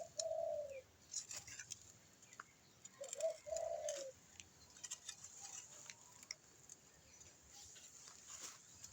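A dove cooing: one falling note at the start, then a short run of two or three notes about three seconds in. Faint scattered clicks and scrapes lie underneath.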